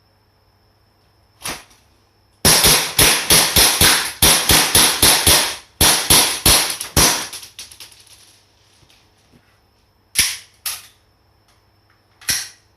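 Gas blowback M92F Beretta airsoft pistol firing: a single shot, then a quick string of about twenty sharp cracks at roughly four a second that grow weaker near the end, then three more single shots.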